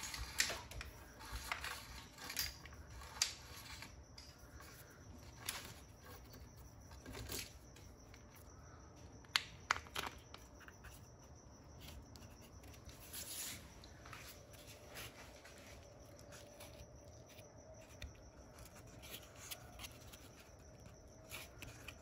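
Faint scattered clicks and rubbing from hands feeding a taped sensor cable up through a hole in a door frame and pressing a reed switch into place, with the sharpest clicks about nine to ten seconds in and again near thirteen seconds.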